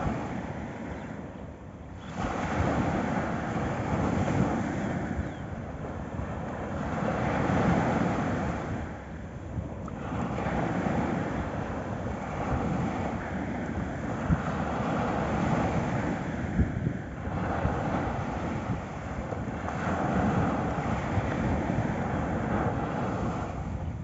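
Small sea waves breaking and washing up a sandy beach. The surf swells and eases every few seconds.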